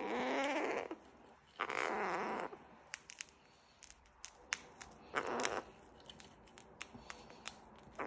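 Male gang-gang cockatoo giving three short raspy calls, the first two just under a second each and the third shorter, with a run of small sharp clicks in between as it works its beak on a sisal rope toy.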